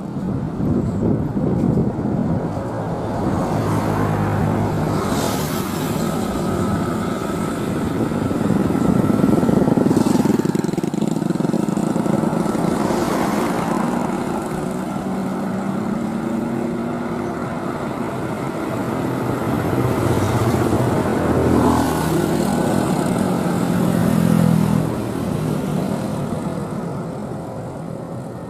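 Airbus A330neo's Rolls-Royce Trent 7000 turbofans at takeoff thrust: a loud, continuous jet rumble with low droning tones as the airliner rolls down the runway and lifts off. The rumble swells about ten seconds in and again near the end, then eases off.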